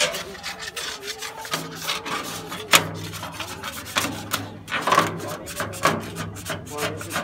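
Hand scraper scraping paint softened by paint remover off a straw reaper's sheet-metal panel, in quick irregular strokes.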